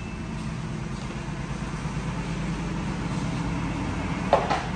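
A steady low hum throughout, and about four seconds in a single short knock as a plastic basket is set down on the wooden floor.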